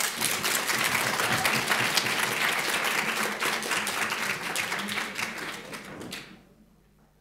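Conference audience applauding a speaker, many hands clapping together; the applause fades out about six seconds in.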